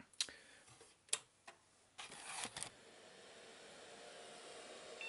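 A few sharp clicks and handling noise, then about halfway through the Amiga 1500 is switched on. Its fan and drives start up as a steady hum that slowly grows louder.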